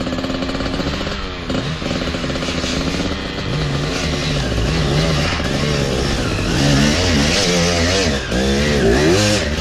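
Enduro dirt bike's two-stroke engine revving hard under load, its pitch rising and falling over and over as the rider works the throttle, loudest near the end.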